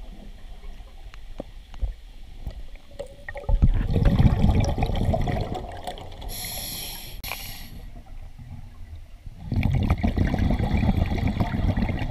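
Scuba diver breathing through a regulator underwater: a long rumble of exhaled bubbles, a short hissing inhale about six seconds in, then another long rumble of bubbles.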